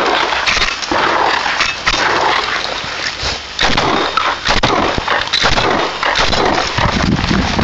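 Shotgun fired again and again in quick, uneven succession, heard from the shooter's own position: sharp blasts close together, working through a course of targets.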